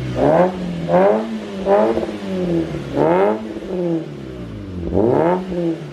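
Maruti Gypsy's petrol engine revved through its exhaust: about five quick blips of the throttle, each rising in pitch and falling back to idle.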